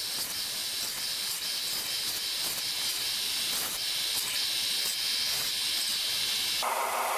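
Belt sander running with a piece of wood pressed to the belt, giving a steady abrasive hiss. Near the end the wood comes off and only the sander's running whir is left.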